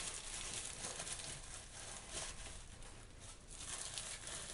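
Paper towel rustling and crinkling as hands press and pat it around a wet raw chicken breast to blot off the water: a faint, irregular run of soft rustles and pats.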